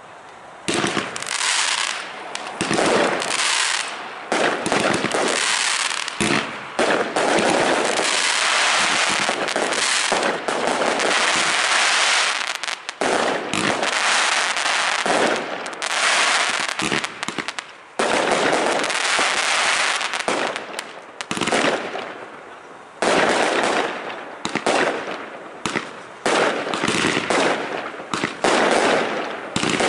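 Fireworks display: aerial shells bursting in rapid volleys of bangs and crackling, almost without pause, starting about a second in. There are short lulls about eighteen and twenty-two seconds in.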